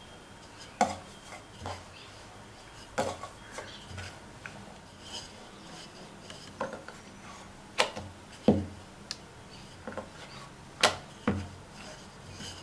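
Wooden rolling pin rolling out chapathi dough on a round wooden rolling board: a soft rubbing as the pin passes over the dough, broken by irregular wooden knocks every second or two where the pin and board clack.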